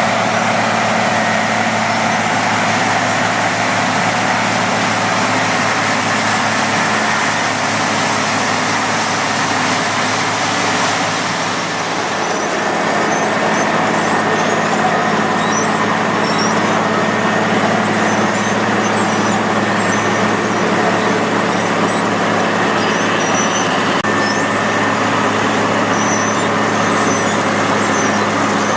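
Pavement cold-milling machine and heavy diesel engines running steadily; the sound shifts about twelve seconds in.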